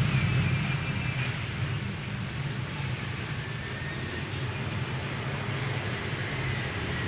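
Road traffic noise: a low vehicle rumble that fades over the first couple of seconds, leaving a steady wash of traffic.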